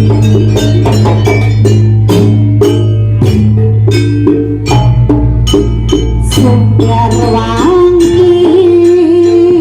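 Live Javanese jaranan music: gamelan-style struck metal keys and drums over a steady low drone, with a wavering held melody line coming in about eight seconds in.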